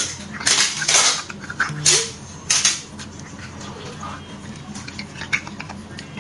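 Metal table knife scraping marrow out of a cooked beef bone, several loud scrapes in the first three seconds, then quieter clicks and mouth sounds as the marrow is eaten off the blade.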